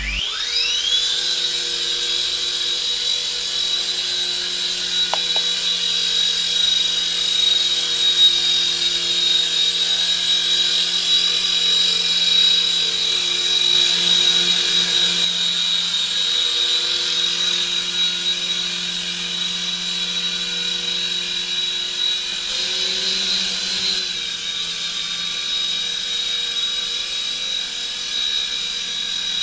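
Silverlite Spycam 2 toy coaxial RC helicopter's electric motors and rotors spinning up with a quickly rising whine, then holding a steady high-pitched whine in hover, briefly rising in pitch once near the end.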